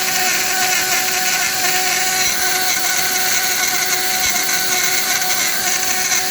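Dremel rotary tool spinning a two-flute metal-cutting end mill as it cuts a slot into a metal model-train chassis: a steady whine with a harsh, noisy cutting rasp. It is the first pass of a new depth, which always makes a lot of noise.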